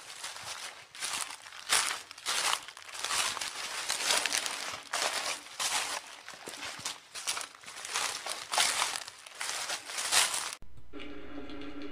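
Footsteps crunching through dry fallen leaves, a step about every half second. They cut off suddenly near the end, and a steady musical tone begins.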